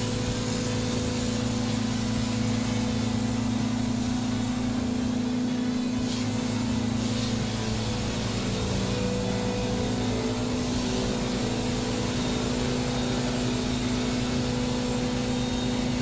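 Drywall texture sprayer running steadily: a continuous machine hum with a hiss over it.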